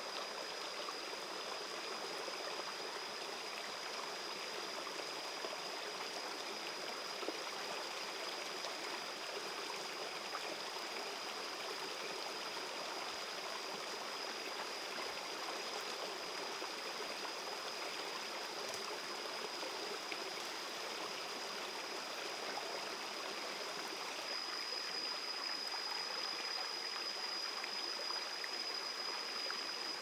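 Steady wash of stream water running over rocks, with a thin, steady high-pitched whine above it that grows a little louder near the end.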